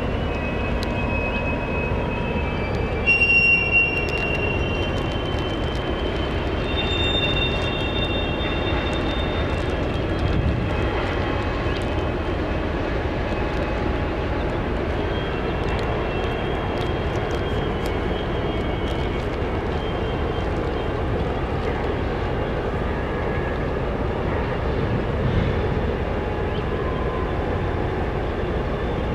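Steady rumble of a rotary railcar dumper tipping coal cars and dumping their coal. Thin high metal squeals come in over it about a second in, loudest at three to four seconds, and again around seven seconds.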